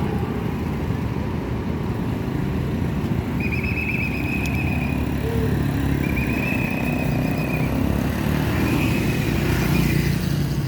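Bus engine rumbling, with a basuri horn sounding three long, high, wavering notes over it, each held for over a second.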